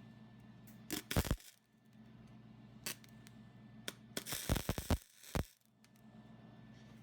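Steel parts clinking as they are handled and set down: sharp clinks about a second in and near three and four seconds, then a short clatter of rapid clinks around four and a half seconds, over a steady low hum.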